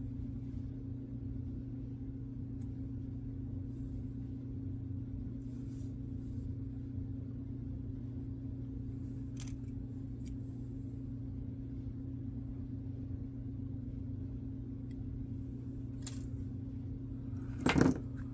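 Tiny plastic and metal Kadee model-train coupler parts being handled and fitted by hand, giving a few faint clicks over a steady low hum, with one short, louder handling noise near the end.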